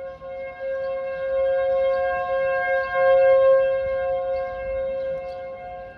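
Outdoor tornado warning siren sounding for a tornado warning: a steady two-note tone that swells louder through the middle and then eases off.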